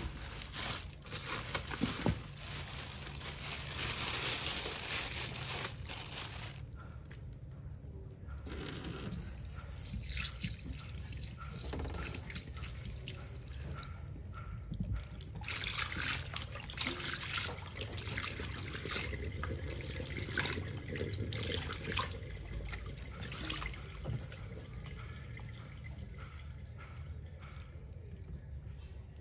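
Raw chicken pieces being emptied from a plastic bag into a stainless steel sink and handled wet, with plastic rustling, dripping liquid and small knocks and clicks. Near the end a knife trims the chicken.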